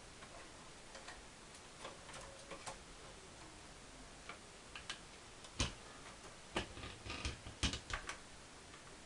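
Scattered light clicks and knocks, of plastic and metal, from hands handling and pushing a graphics card fitted with an Arctic Accelero Xtreme Plus II cooler inside a PC case. The loudest knocks come in a cluster a little past halfway.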